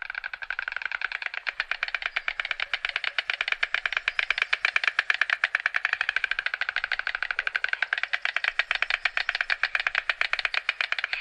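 White stork clattering its bill: a long, fast rattle of clicks.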